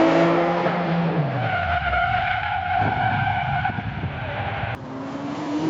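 Car tyres screeching in a long skid over the engine's note, which drops about a second in. The screech stops abruptly with a sharp click near the end.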